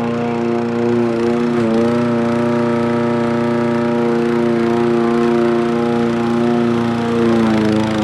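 Homemade remote-controlled rotary lawn mower running steadily with an even, pitched whir, the pitch sagging briefly about two seconds in and again near the end.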